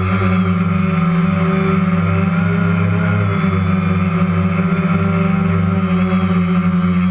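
Steady droning hum of a DJI Phantom quadcopter's electric motors and propellers, one held tone with overtones that wavers slightly in pitch.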